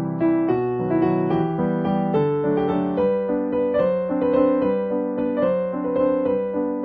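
Background music: a gentle piano melody with chords.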